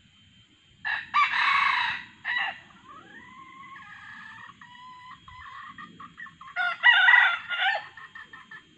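Red junglefowl rooster crowing twice, about a second in and again near the end, with a quieter drawn-out call between the two crows.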